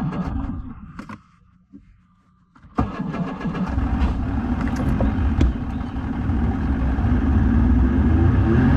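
Bass boat's outboard motor running under way, a loud steady low rumble that comes in suddenly about three seconds in after a brief quiet moment and swells slightly before cutting off abruptly.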